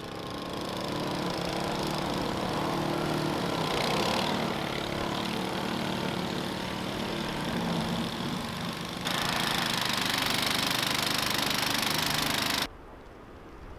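Small engine running steadily. About nine seconds in it gives way to a louder, steady rushing noise that cuts off suddenly shortly before the end.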